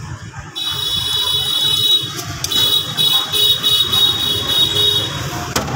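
A steady high-pitched tone like an alarm or buzzer, starting about half a second in and stopping shortly before the end, with a short break around two seconds in.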